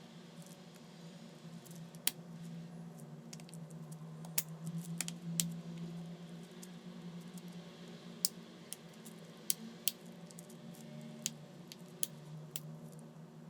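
Scattered sharp clicks and taps of small tools and smartphone parts being handled, over a steady low hum.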